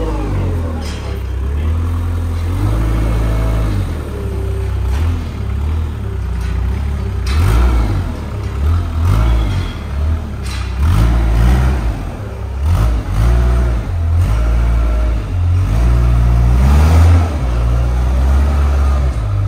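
Weidemann compact wheel loader's engine running under load as it drives with a straw bale, its pitch rising and falling repeatedly as the throttle is worked, with a few short knocks and rattles.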